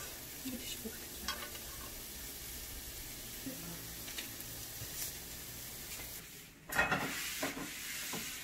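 Soy-and-mirin-glazed potato mochi frying in a nonstick pan, sizzling steadily with small crackles and a few light clicks of wooden chopsticks. About six and a half seconds in the sizzle breaks off and a louder stretch of handling noise follows.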